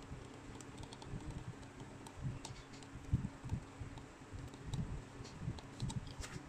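Soft irregular knocks and faint clicks of hand tools at work: a flat metal blade pressing and shifting on a COF flex strip over the PCB while a soldering iron bonds it.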